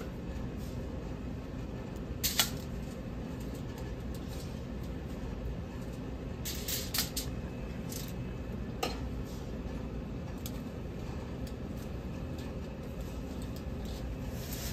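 Metal serving tongs clinking against stainless-steel steam-table pans a few times, the sharpest clink about two seconds in and a short cluster around seven seconds, over a steady low hum of a fan or ventilation.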